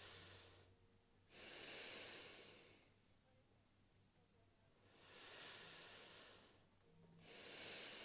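A person breathing quietly, slow deep breaths in and out, each drawn over about a second and a half with a pause between them.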